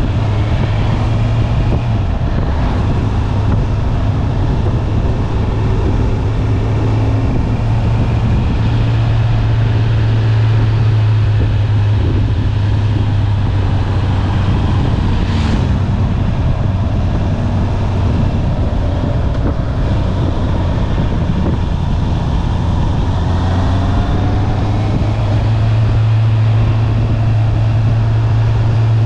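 Stock 2020 Honda CB650R's inline-four engine running steadily as the bike is ridden, its pitch shifting slightly a few times with the throttle, over steady wind noise.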